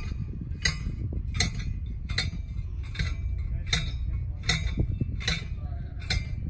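Sharp metallic clicks repeating at an even pace, about one every three-quarters of a second, over a steady low rumble of wind on the microphone.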